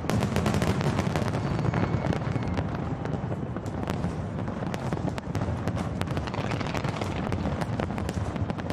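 A large fireworks display: shells bursting in rapid succession, with many sharp bangs and crackles over a continuous deep rumble, heaviest in the first couple of seconds.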